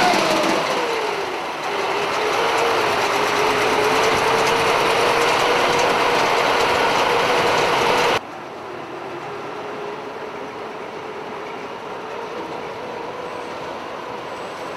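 Military vehicle driving, its engine and drivetrain running under a steady noise with a whine that falls in pitch during the first second and then holds steady. About eight seconds in the sound drops abruptly to a quieter level, the whine still faintly there.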